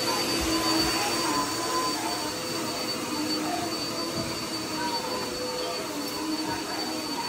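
A steady mechanical whine over a rushing hiss, like a household appliance motor running without a break.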